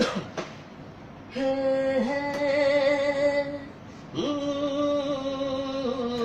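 A solo voice singing long held notes without words, an opening hum of a Hindi film song. The first note starts about a second and a half in, the second just past four seconds, each with small dips in pitch.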